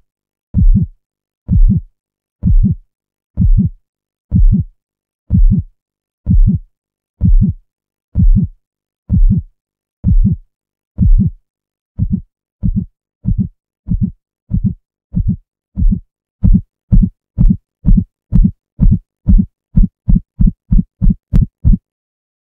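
Heartbeat sound effect: low single thumps at about one a second that speed up about twelve seconds in and speed up again a few seconds later, to more than two a second, then stop just before the end.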